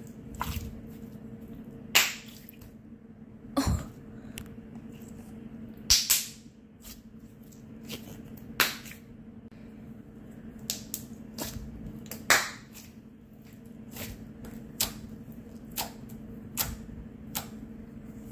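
Clear blue Elmer's glue slime squeezed and kneaded by hand, giving irregular sharp pops and clicks as trapped air bubbles burst, roughly one a second, the loudest about two, six and twelve seconds in. A steady low hum runs underneath.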